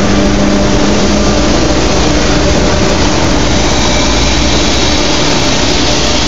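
Strippit CNC turret punch press running steadily without punching: a loud, even machine hum with a few held tones and no strokes or impacts.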